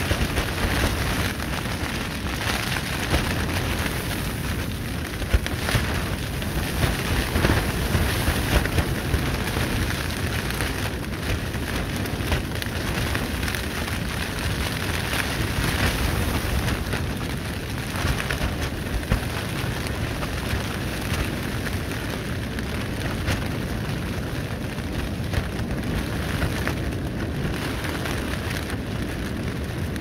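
Clear plastic tent sheeting flapping and crackling in a windstorm, under a steady low rumble of wind, with harder gusts in the first few seconds.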